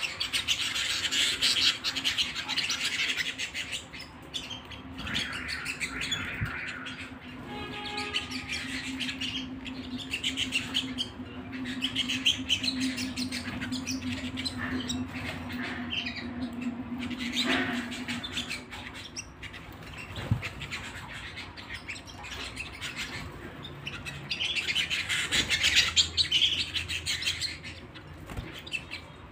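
Domestic canary singing in long bouts of rapid trills and chirps, loudest at the start and again near the end. A steady low hum runs under the song through the middle.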